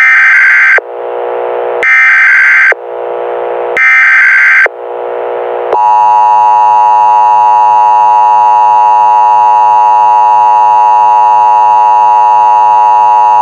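Emergency Alert System header: three short screeching data bursts of the coded warning header, with a fainter tone in the gaps between them. About six seconds in, the steady, harsh two-tone EAS attention signal starts and holds for about eight seconds, announcing a civil danger warning.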